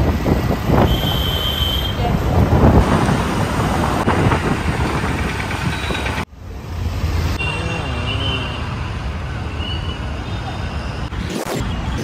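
Street traffic noise: vehicles running on a busy road, with voices in the background. The sound breaks off sharply about six seconds in and starts again at once.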